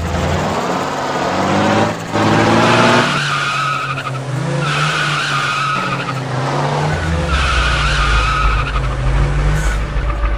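Truck engine sound rising and falling in pitch, with three drawn-out tyre squeals of a hard skid as the truck brakes to avoid hitting a cat.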